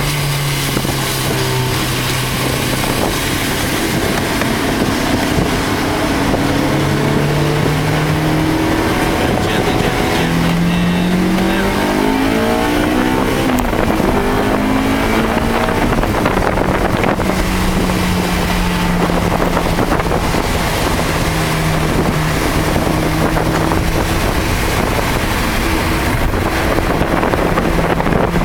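Car engine heard from inside the car on a racetrack, its pitch climbing under acceleration twice in the first half, rising and falling quickly a few times near the middle as the driver shifts, then holding steady. A loud rush of wind and wet-track tyre noise runs underneath.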